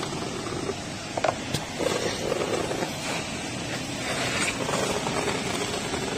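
Car-wash vacuum hose sucking over a child's car seat: a steady rushing noise, with a couple of sharp knocks about a second and a half in as the nozzle bumps the seat.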